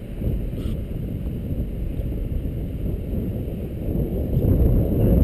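Low, muffled rumble of wind buffeting the camera's microphone, growing louder about four seconds in.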